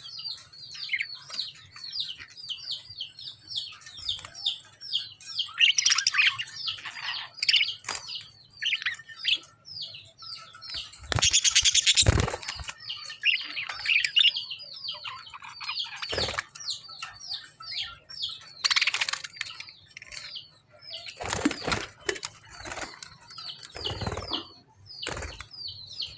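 Pet lovebirds chirping, a rapid run of short high falling chirps, broken by several louder bursts of wing flapping. The longest flapping burst comes a little before the middle.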